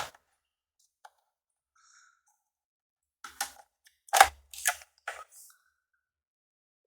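Plastic laptop case being handled and pried apart: a sharp click at the start, then a quick cluster of clicks and knocks about three to five and a half seconds in.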